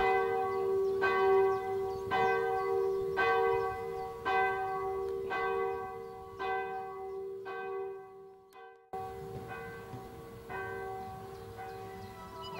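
Church bell tolling in a steady rhythm of about one stroke a second, each stroke ringing on into the next. The sound briefly cuts out about two-thirds of the way through, and the strokes that follow are fainter.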